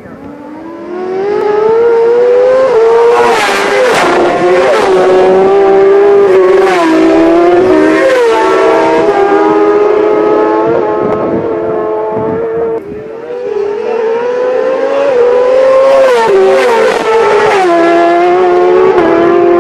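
Racing motorcycles passing at full speed on a closed country road. The engines are very loud and revving hard, their pitch climbing and then stepping down at each gear change. The sound dips briefly about two-thirds of the way through, then a second bike comes through revving the same way.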